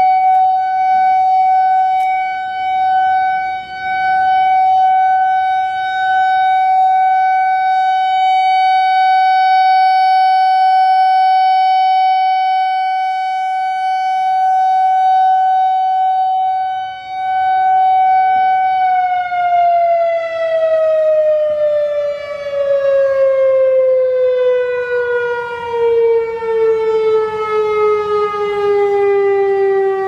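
Whelen WPS-4004 rotating electronic warning siren, driven by an analog ESC-864 tone generator, sounding a steady alert tone rich in overtones during a test. Its loudness swells and dips as the four-horn head turns. After about nineteen seconds the pitch glides steadily down as the tone winds down.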